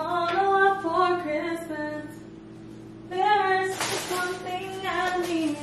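A woman's voice singing a melody in two phrases, with a pause of about a second between them.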